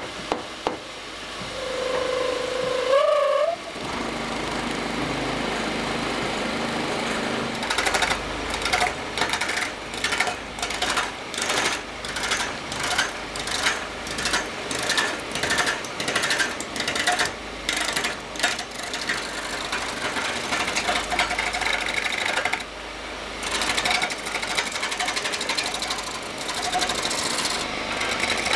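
Wood lathe turning a raw log while a hand-held turning tool roughs it down, cutting in rough, repeated strokes about twice a second. About three seconds in the lathe starts up with a rising whine.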